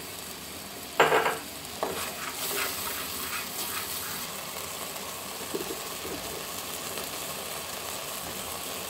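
Slotted wooden spatula stirring and scraping a thick onion and spice masala in a pan as it fries down in oil, with steady sizzling underneath. A sharp knock about a second in is the loudest sound, followed by a few lighter scrapes.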